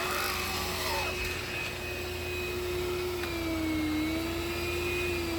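Black & Decker cordless lithium pet vacuum running steadily, its motor whine holding one pitch that sags slightly around the middle and comes back up.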